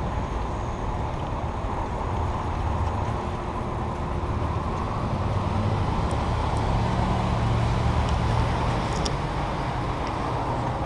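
Steady low rumble of wind and road noise while cycling through city streets, with motor traffic, swelling a little louder in the middle.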